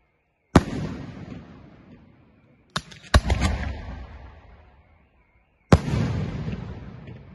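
Aerial firework shells bursting overhead: a sharp bang about half a second in, a quick cluster of bangs around three seconds, and another bang near six seconds. Each is followed by a long rolling echo that dies away over about two seconds.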